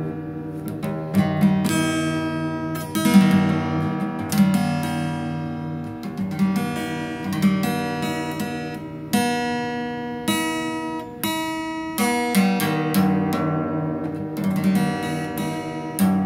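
Acoustic guitar strings picked with a plastic pick in slow, uneven strokes, about one or two a second, each note ringing on and fading before the next.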